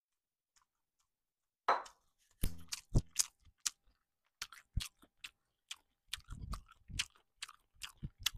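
A person chewing a mouthful of seasoned shellfish close to the microphone: irregular wet smacks and small crunches, starting about two seconds in.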